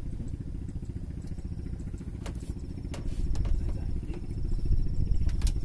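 A motor running steadily with a low, fast-pulsing rumble, getting louder near the end, with a few light clicks.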